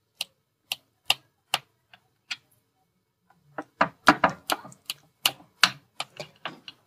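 Knife blade clicking against the bottom of a glass dish as it cuts through set barfi: a few sharp, spaced-out clicks, a short pause, then a quick run of clicks in the second half.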